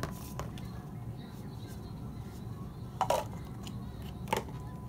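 A paper cup and candy handled on a bedside tray table: two short knocks, one about three seconds in and one just past four, over a steady low room hum.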